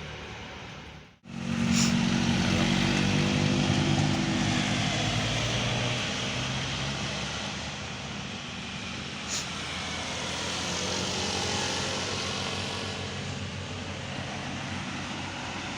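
Large bus engine running as it passes, loudest just after a sudden cut about a second in, then slowly fading along with road noise.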